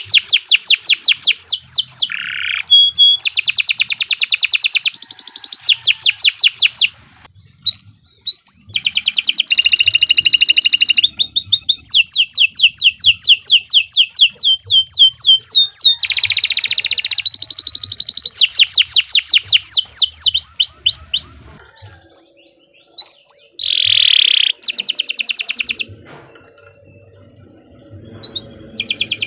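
Domestic canary singing a long, continuous song: phrase after phrase of fast trills, each a rapid run of repeated high notes, with a few short pauses between phrases.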